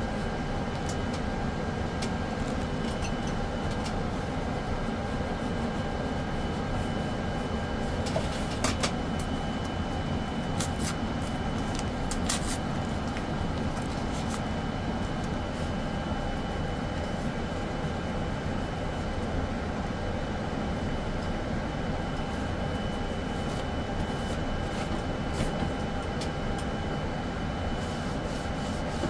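Steady droning hum of an airliner flight deck's ventilation and equipment-cooling fans, with a faint constant whine in it. A few short crackles come about eight to twelve seconds in, from handling a plastic wipe packet.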